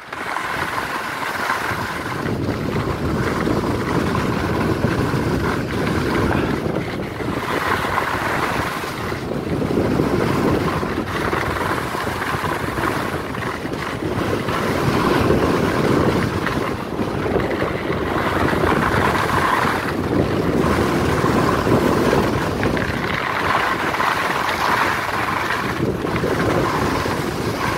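Wind rushing over the microphone and skis hissing over groomed snow during a downhill ski run, the rush swelling and easing every few seconds.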